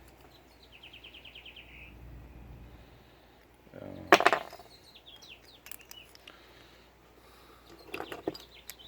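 Sharp clicks and clatter of disassembled door lock parts being handled, loudest just after four seconds in, with a second cluster of clicks about eight seconds in. A brief high, rapid chirping trill comes about a second in.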